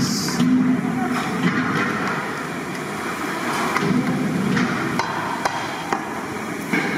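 Long-handled metal ladle stirring and knocking in a large aluminium cooking pot of curry, with scattered sharp knocks over a steady noisy background.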